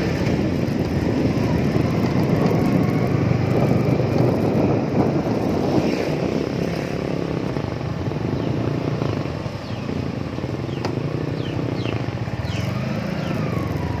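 Wind buffeting the microphone of a camera mounted on the licence-plate holder of a moving 2019 Yamaha R15 motorcycle, with the bike's single-cylinder engine running under the rush. A few short high-pitched chirps come near the end.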